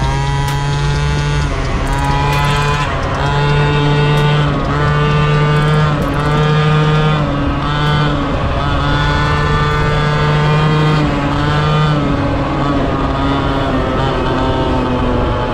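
Two-stroke Honda Dio scooter engine running under way, its pitch rising and falling every couple of seconds with the throttle.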